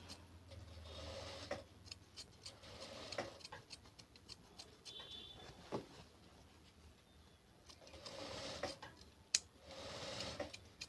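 Scissors snipping through fabric as the excess seam margin is trimmed close to a line of stitching. The snips are faint and irregular, with soft cloth rustling between them.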